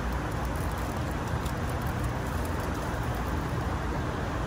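Steady low rumble of road traffic crossing a highway bridge overhead, with no distinct events standing out.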